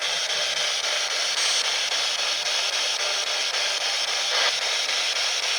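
Steady radio static hiss from a spirit box, a radio scanning for spirit voices, with no voice breaking through.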